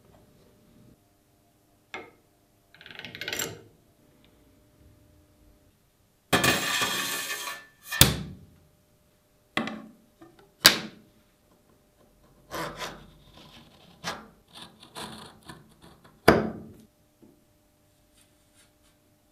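Workshop handling sounds from a thin stainless steel sheet and a hand-lever metal shear on a wooden workbench. There is a long scraping slide, sharp metallic knocks, and a run of rasping clacks as the sheet is fed into the shear's blades.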